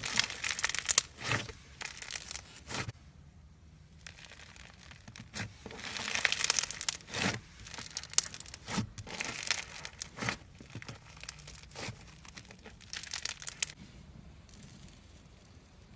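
Slime being handled by hand, making short bursts of crackling and popping with quiet pauses between them.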